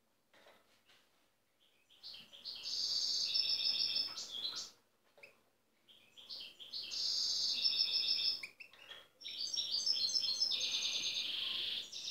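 European goldfinch singing its wild song: three phrases of quick high notes and trills, each two to three seconds long, the first beginning about two seconds in.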